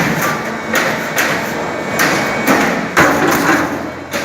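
CNC coordinate punching press punching coiled steel strip: a series of sharp punch strokes at uneven spacing, roughly two a second.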